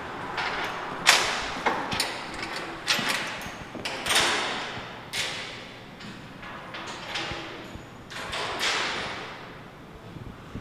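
A string of sharp knocks and clanks at uneven intervals, about one a second, each echoing and dying away through a large hall.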